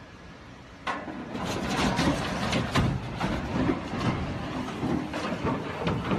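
A steel truss bridge collapsing under a lorry loaded with an excavator: a sudden sharp crack about a second in, then loud, continuous crashing and clattering of steel as the bridge and truck fall.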